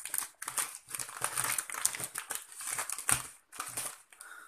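Plastic-wrapped pasta packets crinkling as they are handled and pushed upright into a plastic basket, a busy run of crackly rustles that thins out near the end.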